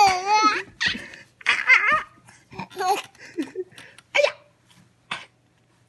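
Baby laughing in high, squeaky bursts that sound like a cat meowing. The bursts come thick and fast for the first three seconds or so, then thin to two short ones.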